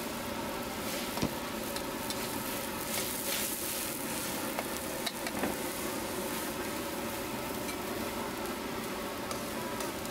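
Hot oil sizzling steadily in a wok as food fries in it, with a few sharp clicks of a metal ladle against the wok.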